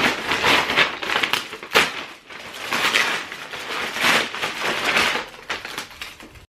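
Plastic-fibre Tyvek Priority Mail envelope being torn open and crinkled by hand, in repeated bouts of rustling and ripping with a sharp snap about two seconds in. The sound cuts off suddenly near the end.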